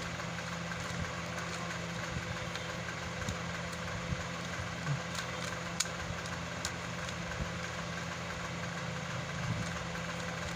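A steady low mechanical hum, like a motor running, carries on throughout. Over it come a few faint sharp clicks of a Rubik's cube's plastic layers being turned, the clearest about halfway through.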